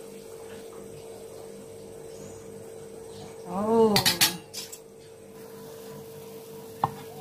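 Metal ladle clinking against an aluminium wok of simmering soup: a few sharp clinks about four seconds in and one more near the end, over a steady faint hum. Just before the clinks comes a short hummed voice sound.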